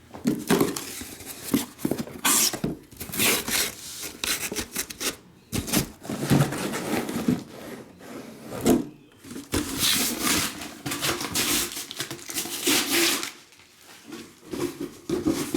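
Rustling, rubbing and scraping of trading-card packaging and cards being handled close to the microphone, in irregular stretches with short pauses.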